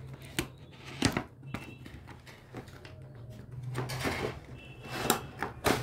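Cardboard doll box being handled and opened: a few sharp knocks and taps, then rustling and scraping from about halfway in as the packaging is pulled open, over a low steady hum.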